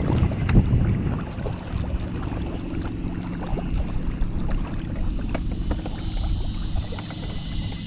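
Sailing kayak moving through the water, with water lapping and splashing at the hull, wind buffeting the microphone, and scattered small knocks and drips.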